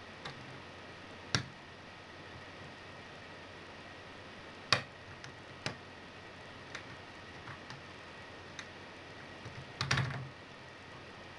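Lockpick clicking against the pins inside a MILA Evolution euro profile cylinder during single-pin picking. There are single sharp metallic clicks at uneven intervals and a quick rattle of several clicks near the end.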